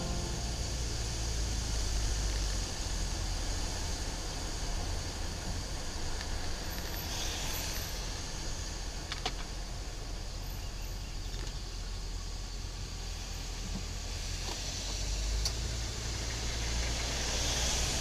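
Car driving on a wet road, heard from inside the cabin: steady low engine and road rumble with tyre hiss.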